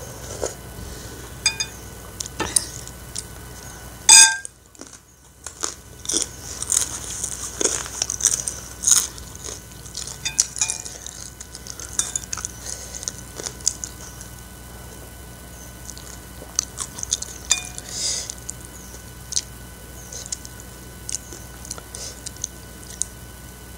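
A person chewing noodles, with a metal spoon clinking and scraping against a ceramic bowl in scattered short clicks; the sharpest clink comes about four seconds in.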